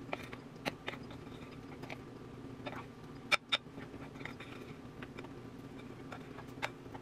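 A big metal spoon hand-folding flour into thick cake batter in a glass mixing bowl: soft scraping and squelching with scattered clicks of the spoon against the glass, the loudest two in quick succession about three and a half seconds in. A faint low hum runs underneath.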